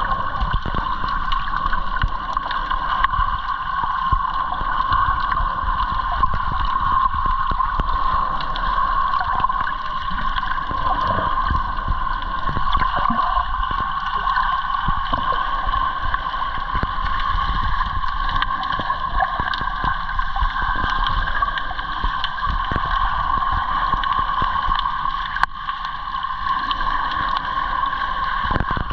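Muffled underwater sound around a submerged camera: irregular gurgling and sloshing of water over a steady hum.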